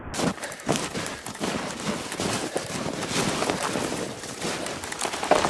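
Footsteps crunching through deep snow at a quick pace, about two or three steps a second.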